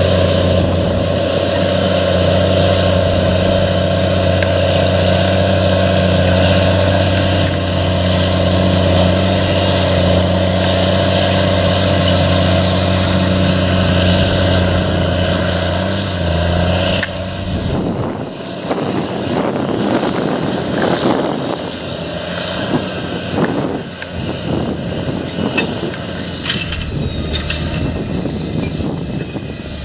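An engine running steadily with a deep, even hum. About 17 seconds in, the steady hum gives way to a rougher, uneven noise with scattered knocks.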